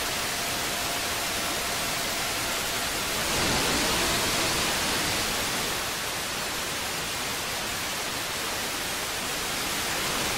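Steady hiss of static from an analog FPV video receiver's audio channel, as recorded by the goggles' DVR. The hiss swells louder a little over three seconds in, as the 5.8 GHz video signal breaks up.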